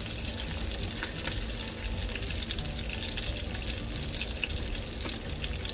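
Small chapila fish, fried through, sizzling steadily in hot oil in a nonstick frying pan as a silicone spatula moves them to lift them out.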